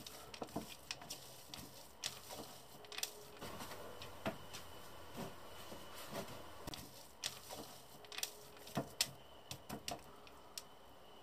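Hands squashing and rubbing fruit pulp through a perforated metal colander: soft squishes with irregular light taps and clicks against the metal bowl.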